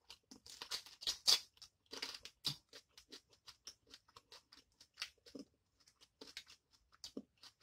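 Eating sounds of a boiled head-on shrimp being peeled by hand and chewed: irregular small crackles of shell and wet mouth clicks, several a second.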